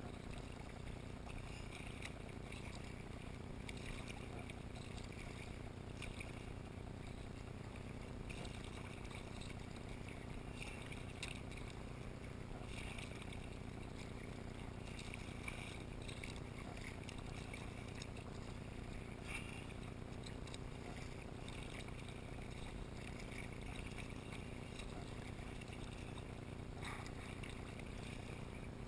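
Kayak being paddled: repeated splashes of the paddle blades dipping into the water over a steady low rush of water.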